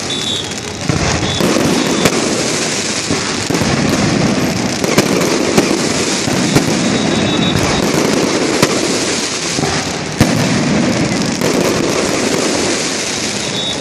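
Fireworks going off in a continuous loud, dense hiss and crackle, with a few sharp pops standing out about five to six seconds in and again around eight and ten seconds.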